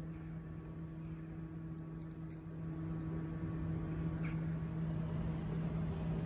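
Steady electric hum of a stationary electric passenger train with a low rumble beneath, growing slightly louder partway through; a single small click about four seconds in.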